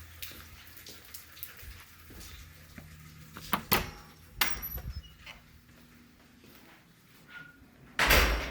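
A door being worked: a few sharp clicks and knocks of the latch and handle, then one louder thud near the end as it shuts.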